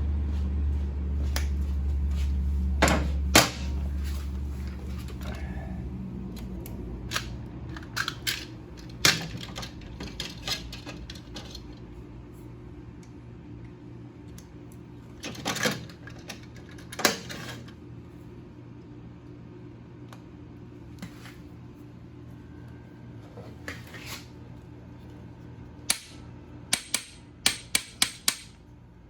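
Metal tools and screws clinking and knocking during work on a motorcycle engine: sharp single knocks a few seconds apart, then a quick run of small clinks near the end. A low steady hum fades out about six seconds in.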